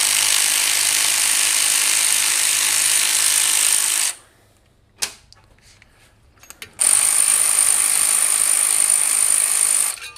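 Cordless power ratchet spinning out bolts on an engine cover: two steady runs of high whirring, about four seconds and then about three, with a single short knock between them.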